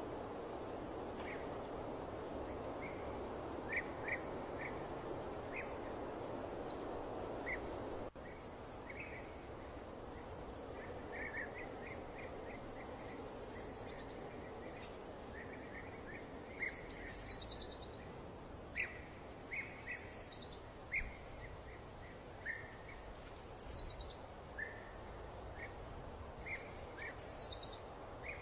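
Birds chirping and singing over a steady background hiss. From about halfway, one call sweeping downward in pitch repeats every few seconds. The hiss drops out briefly about a quarter of the way in and is softer afterwards.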